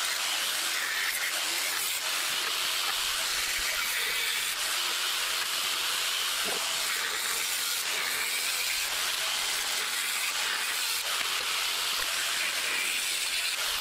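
Angle grinder with a cutting disc running steadily, a continuous high hiss as it cuts through the tubes of an aluminium bicycle frame.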